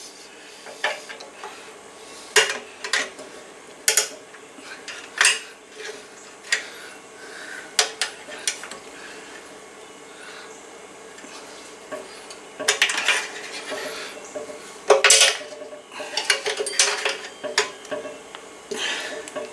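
Scattered light metallic clinks and taps as a copper air line and its flare nut are handled and fitted against an air compressor's pump head, about a dozen at irregular intervals.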